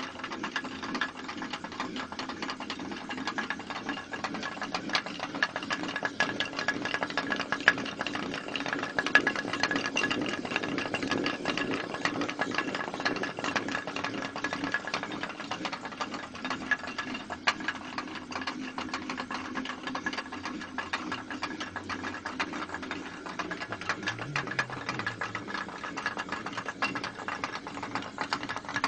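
Ladakhi ranthak, a water-powered stone flour mill, running: a rapid, steady clatter over a steady hum.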